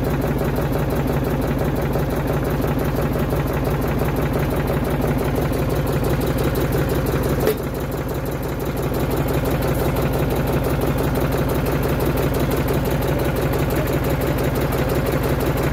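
Tractor diesel engine idling steadily, with a brief dip in level about halfway through.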